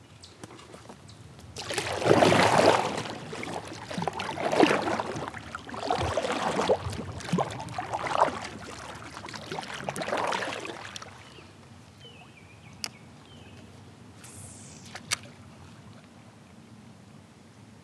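Kayak paddle strokes sloshing through river water, about five strokes roughly two seconds apart. The paddling stops after about eleven seconds, and two sharp clicks follow near the end.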